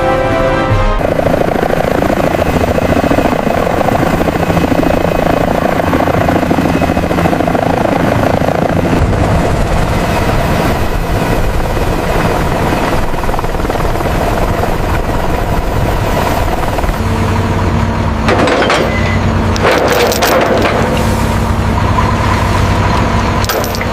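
Steady engine and machinery drone, like a vessel's lifting gear at work. Its character changes abruptly about a second in, about nine seconds in, and again about seventeen seconds in, when a low steady hum sets in. A few sharp noises come near the end.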